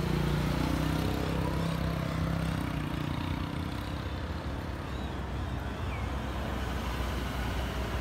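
Road traffic: a car engine's hum is strongest over the first few seconds and then fades, leaving a steady traffic hiss.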